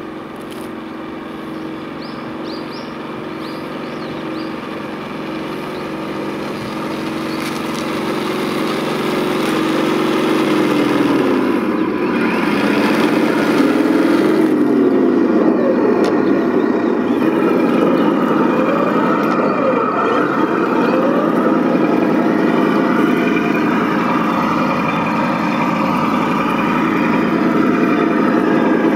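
Radio-controlled 1/16 scale Leopard 2A6 model tank running, a steady even drone at first. After about ten seconds the sound gets louder and its pitch swings up and down as the tank speeds up and slows while driving.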